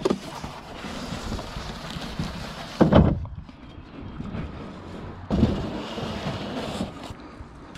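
Wind gusting across the microphone, swelling about three seconds in and again from about five seconds in. Under it, the plastic bag wrapping the boat and the foam packing rustle as they are handled.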